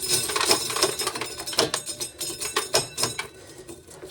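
Hand-cranked corn sheller clattering as an ear of corn is fed through it: a rapid, irregular run of knocks and rattles from the kernels being stripped off the cob, thinning out near the end.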